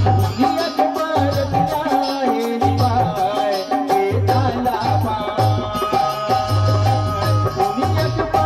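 Live Chhattisgarhi jas geet (devotional folk song): a male lead singer sings into a microphone over steady drum beats and the clash of small hand cymbals, all amplified through the stage PA.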